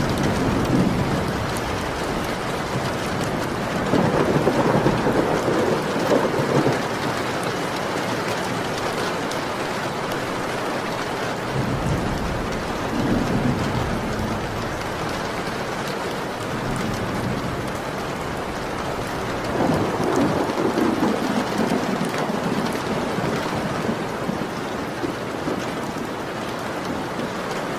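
Steady rain with rolling thunder. The thunder swells in four low rumbles, one at the start, then about 4, 12 and 20 seconds in.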